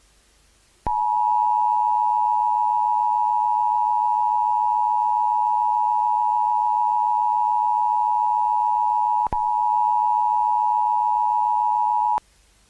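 Emergency Alert System attention signal: a steady two-tone alarm pitched just below 1 kHz. It starts about a second in, drops out for an instant about nine seconds in, and cuts off shortly before the end. It signals that an emergency alert message follows.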